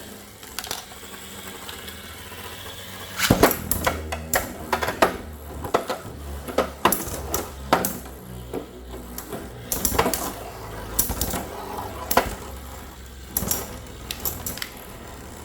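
Two Beyblade spinning tops, Phantom Orion and a full-metal Lightning L Drago, launched about three seconds in, then spinning and colliding in a stadium with repeated sharp metallic clacks over a steady low spinning hum.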